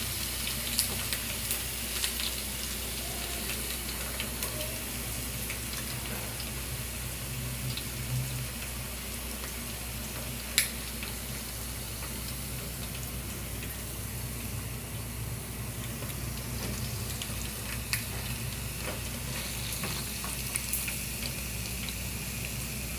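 Chicken pieces sizzling steadily in hot oil in a pan, the gas just turned off, with a metal spoon scraping and clinking against the pan as the fried chicken is lifted out; one sharper clink about ten seconds in.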